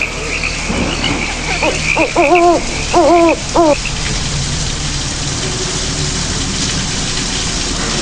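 Night-time sound effect: short hooting animal calls in quick groups over a high, steady chirping of insects. Both stop about four seconds in, leaving a steady hiss.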